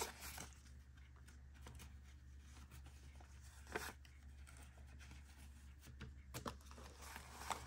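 Faint rustling of paper banknotes being handled and counted, with a brief crisper rustle about halfway through and again near the end, over a low steady hum.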